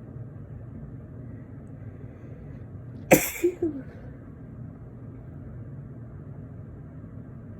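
A single allergy sneeze about three seconds in: one sharp, loud burst followed by two short voiced after-sounds that fall in pitch. A steady low hum runs underneath.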